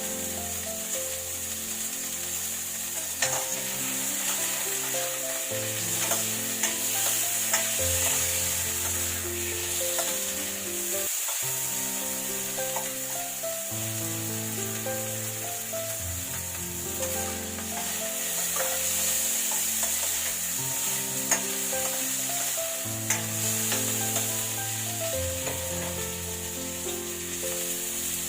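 Food sizzling in a frying pan as it is stirred, with occasional light taps and scrapes of the utensil against the pan. Background music with sustained chords plays throughout, and briefly cuts out about eleven seconds in.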